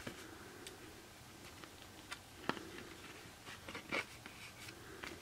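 Pages of a small glossy paper booklet being turned by hand: quiet rustles and flicks, with the sharpest page snap about halfway through and a few more near the end.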